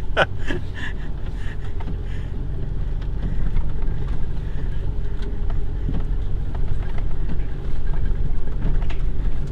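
Vehicle engine running steadily under load while driving on a slippery mud road, with a short squeak right at the start.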